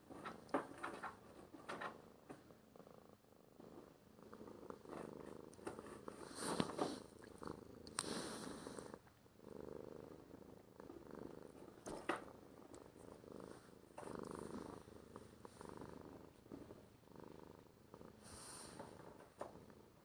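A domestic cat purring right at the microphone, with scattered clicks and rustles as fur and a petting hand brush against it.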